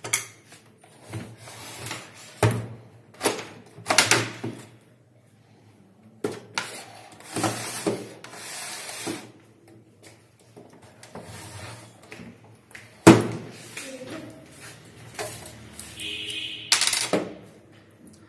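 Handling of a plastic APC Back-UPS case on a table: irregular knocks, clicks and rubbing as its power plug is pulled and the unit is moved about. There is one sharp knock about two-thirds of the way through, and a short high tone near the end.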